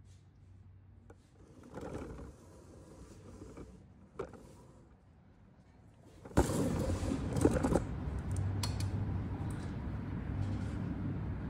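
Faint room tone with a couple of soft knocks, then about six seconds in a steady mechanical hum with hiss starts abruptly and carries on, broken by a few clicks.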